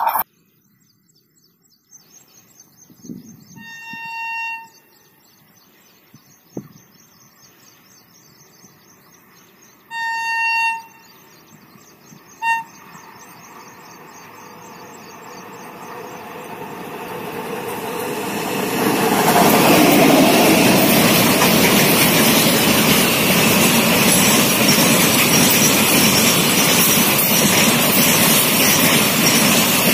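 WAG9 electric locomotive's horn sounding twice, about a second each, then a short toot, as it approaches hauling a double-stack container freight train. The noise of the train's wheels on the rails then grows steadily louder and stays loud and steady as the container wagons pass close by.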